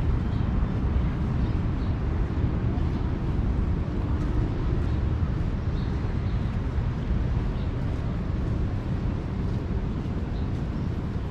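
Ocean surf washing in below the pier: a steady rushing noise, heaviest in the low end, with no distinct breaks.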